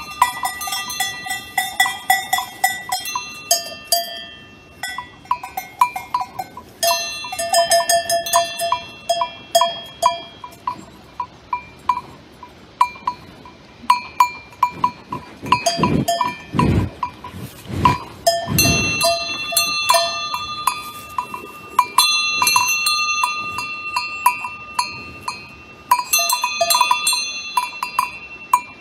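Several cowbells of different pitches clanking irregularly and ringing on as cows move their heads. About halfway through come a few loud, low puffs of breath as a cow's nose is right at the microphone.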